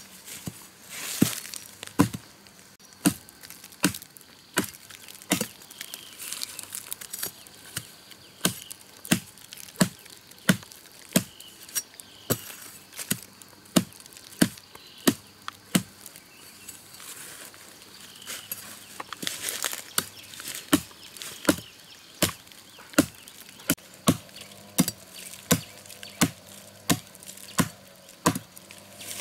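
Palm tubers being chopped with a blade: sharp chopping strokes, steady at about three every two seconds.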